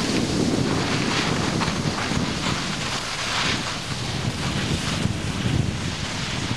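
Wind rushing over a camcorder microphone while skiing downhill: a steady noisy rush with a fluctuating low rumble.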